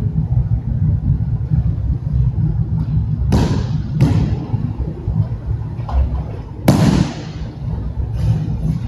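Aikido throws landing on the dojo mat: three sharp slaps of body and hands striking the mat, the loudest about two-thirds of the way through, over a steady low rumble.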